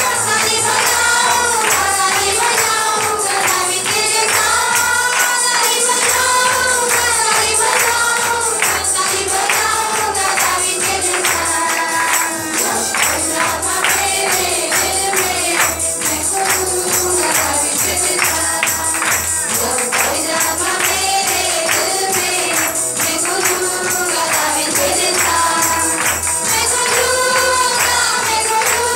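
A woman singing a worship song into a microphone over backing music with a steady beat, tambourine jingles and a pulsing bass.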